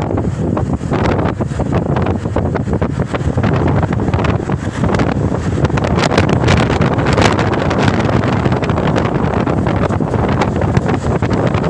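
Wind rushing and buffeting against a phone microphone held at the side window of a moving car, over the car's steady road noise.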